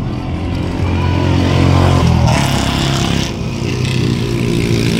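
Scooter engine running steadily as it is ridden. About two seconds in comes a short burst of hissing noise.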